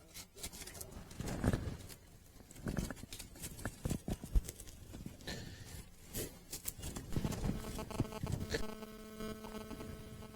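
Irregular clicks, knocks and low thumps of things being handled, then a steady electric hum with many overtones starts suddenly about eight and a half seconds in.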